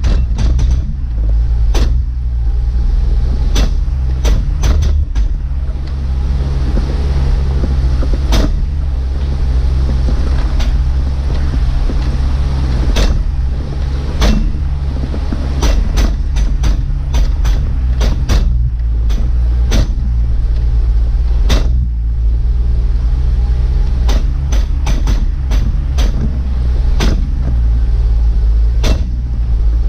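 Jeep Wrangler engine running steadily at trail-crawling speed, with dozens of sharp knocks at irregular intervals, some in quick clusters. The knocking fits the banging the owner blames on an improperly installed Aussie lunchbox locker in the Dana 35 rear axle.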